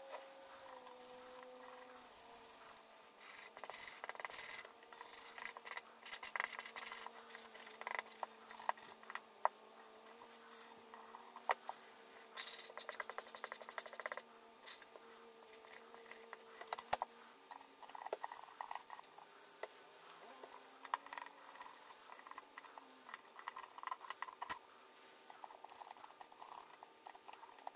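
Irregular scratching, rubbing and small sharp clicks of close hand work on a Konica EFJ compact film camera while its light seals are being replaced.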